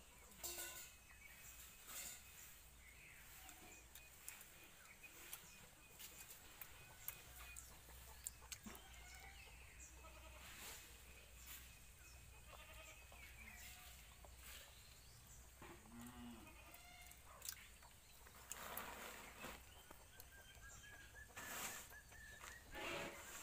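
Near silence with faint, scattered animal calls now and then and a few small clicks.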